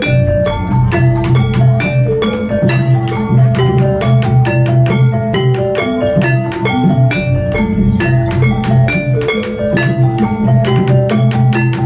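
Banyumasan gamelan music accompanying an ebeg dance: a fast, steady run of struck tuned percussion notes over held low tones, with drumming.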